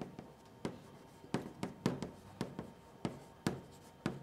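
Chalk writing on a blackboard: about a dozen short, uneven taps and scratches as the chalk strikes the board stroke by stroke.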